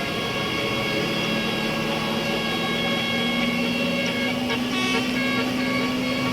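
Tour bus's telolet basuri musical horn playing several steady notes at once, with the notes changing as it goes and a low note held through the second half.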